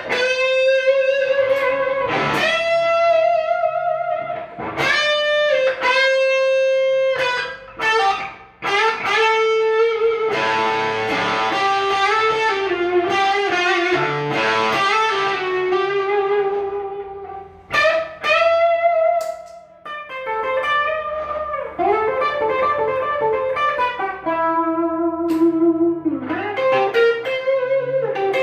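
Electric guitar played through an amplifier: sustained, ringing single-note lines and chords, with a few short breaks in the playing.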